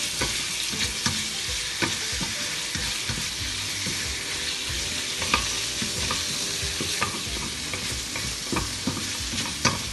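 Marinated chicken breast sizzling in oil in a stainless-steel wok over a turned-up gas flame, with a wooden spatula stirring and knocking against the metal pan in irregular taps.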